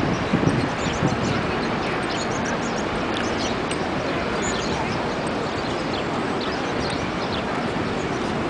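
Outdoor city-square ambience: a steady wash of traffic and crowd noise with many small birds chirping throughout. A brief low thump about half a second in is the loudest moment.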